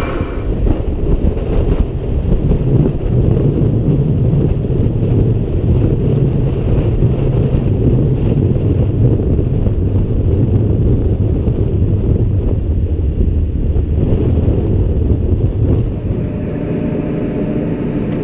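Tractor engine running steadily under heavy blizzard wind buffeting the microphone, the wind rumble the loudest part.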